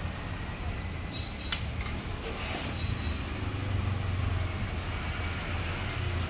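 Steady low mechanical hum, like a fan or motor, with a faint light click about a second and a half in.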